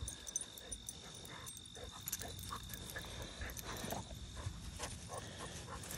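Two dogs playing in grass: faint, scattered scuffles and soft dog sounds, with a steady high-pitched insect drone behind them.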